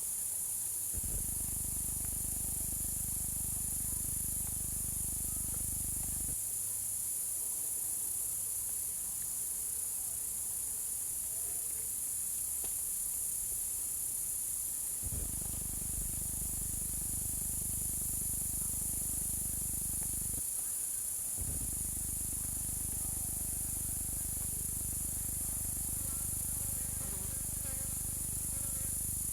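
Swamp ambience: a steady high-pitched insect chorus of crickets, with a low rumble that comes and goes and a few faint repeated calls near the end.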